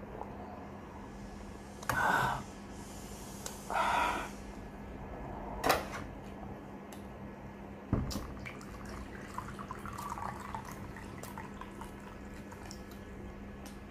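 Water poured from a stainless-steel electric kettle into a glass bowl: a faint trickle with small clinks. Before it come two short rushing noises, a sharp glass clink and a thump as the bowl and kettle are handled.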